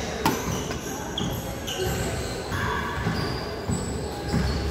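Badminton rally: a sharp racket strike on the shuttlecock just after the start, rubber-soled court shoes squeaking in short high chirps, and players' thudding footsteps on the court floor.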